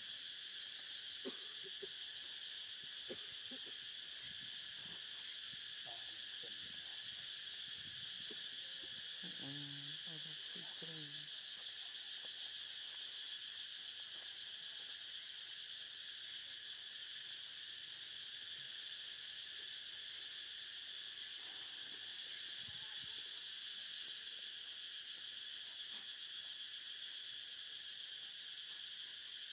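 Insect chorus buzzing in a steady, high-pitched drone, with a brief faint low voice about ten seconds in.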